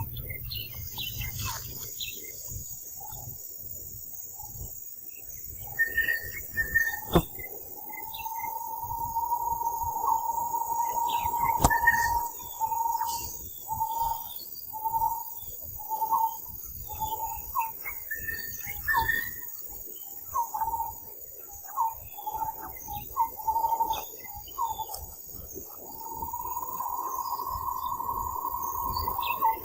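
Outdoor insect chorus: a constant high hiss of insects, with a louder buzzing tone that holds steady for a few seconds, then pulses about once a second, then holds steady again near the end. Scattered bird chirps and a few sharp clicks come through.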